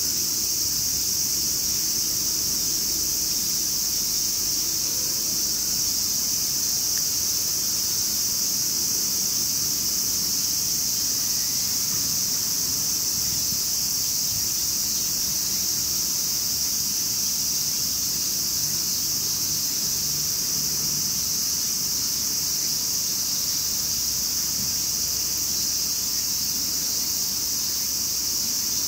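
Insects in the grass and vegetation droning continuously: a steady, high-pitched buzzing that does not change in pitch or level.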